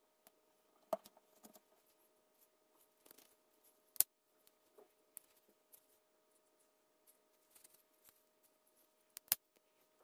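Faint handling of a Boker Kalashnikov automatic knife and its box: soft rustles and sharp clicks, the loudest about four seconds in. Near the end comes a quick double click as the spring-driven blade fires open and locks.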